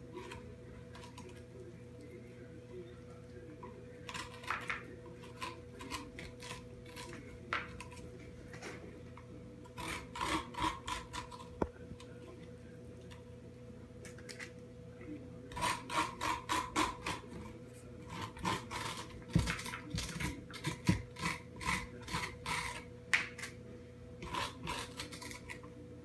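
A spoon scraping the seeds and stringy pulp out of a halved spaghetti squash, in runs of quick strokes with pauses between them, over a steady faint hum.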